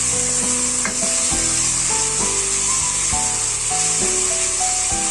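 Chopped chicken and vegetables sizzling steadily in hot ghee in a saucepan as they are sautéed.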